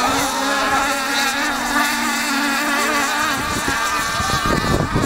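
Radio-controlled racing speedboats running at full speed, a high buzzing motor whine that wavers in pitch. In the last second or so, gusts of wind rumble on the microphone.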